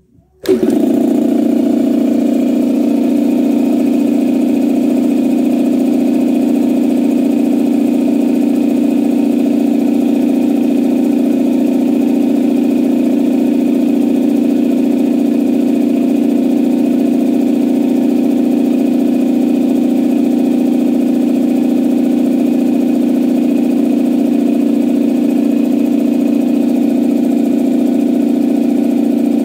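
Campbell Hausfeld two-cylinder air compressor starting about half a second in and then running steadily, pumping up its tank after a head gasket replacement cured its failure to build pressure.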